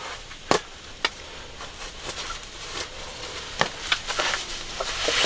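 Handling noise: a few scattered sharp clicks and knocks of things being moved about, over a low steady hiss.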